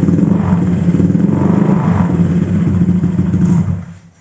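Honda Vario 150 scooter's single-cylinder engine running loudly through a racing exhaust silencer mounted on an adaptor, then shut off near the end.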